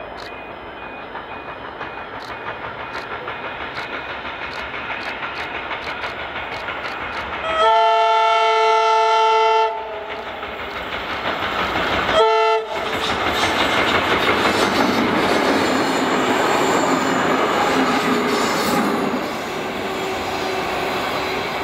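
Heritage Tait electric suburban train approaching, its wheels clicking over rail joints and growing louder as it nears. It sounds a horn blast of about two seconds, then a short toot a couple of seconds later. It then passes close by in a loud, steady rush of wheels on rail that eases off near the end.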